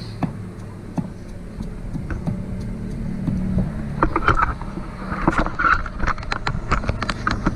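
A motor vehicle's engine running as a steady low hum. A quick run of sharp knocks sounds in the second half.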